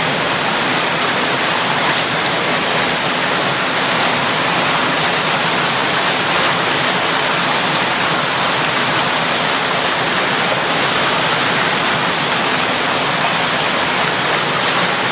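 Whitewater river rapids rushing in a steady, loud roar of water.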